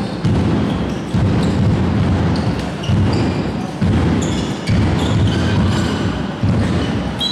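A large drum beaten at a steady pace, a little more than one beat a second, each beat ringing on in the big hall. Short high squeaks from sports shoes on the court floor sound between the beats.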